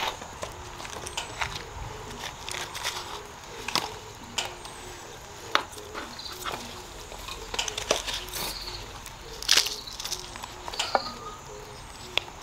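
Gloved hands working loose potting mix in a galvanized metal tub, an irregular crunching and rustling of soil broken by sharp scrapes and clicks as a seedling is potted up.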